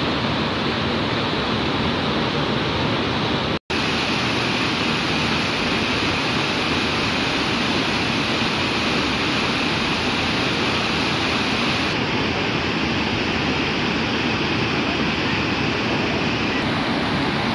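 Steady, dense rush of whitewater pouring down a river waterfall and over rock ledges. The sound cuts out for an instant a little under four seconds in.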